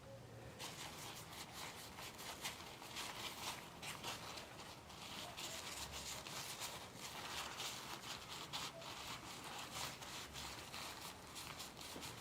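Scratchy rubbing or scrubbing on a hard surface: a quick, irregular run of small scrapes and clicks that starts about half a second in and keeps going.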